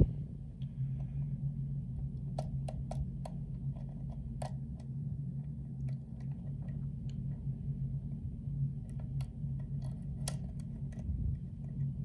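Hook pick and tension wrench working the pins of an oval pin-tumbler lock cylinder fitted with serrated drivers: irregular small metallic clicks, several close together about two to four seconds in and again around nine to ten seconds, over a steady low hum.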